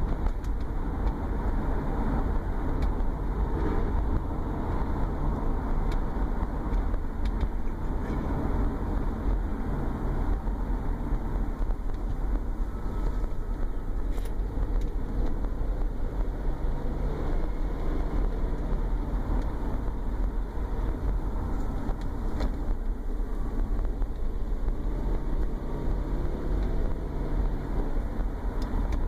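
2011 Subaru Forester driving, with a steady low rumble of road and flat-four engine noise. A low drone hum rises out of it twice in the second half. The owner hears this drone under light load, with the torque converter unlocked at 1,000–1,500 rpm, ever since the engine was pulled for an oil-leak repair, and does not know its cause.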